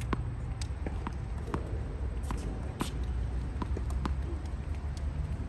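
Ball being struck back and forth in a rally: sharp, short clicks about every half second, unevenly spaced, over a steady low rumble.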